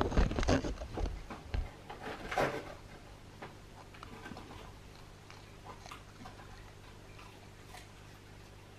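Cardboard Happy Meal box rustling and knocking as a pomsky puppy noses it and pushes it over: a burst of clicks and thumps over the first two seconds or so, then only faint scattered ticks.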